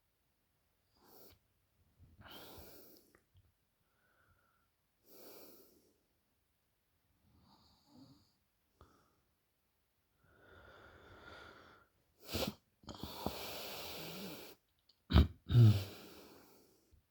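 A woman snoring in deep sleep: soft breaths every couple of seconds, growing louder near the end into a long noisy breath and two loud, low-pitched snorts.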